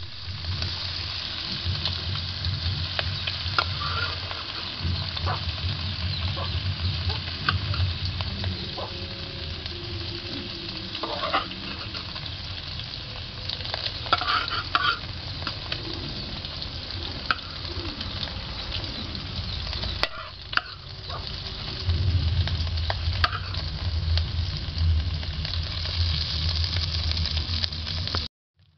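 Shrimp sizzling in hot oil in a wok, with a metal spoon scraping and clinking against the pan as they are stirred and scooped out. The sizzle cuts off abruptly near the end.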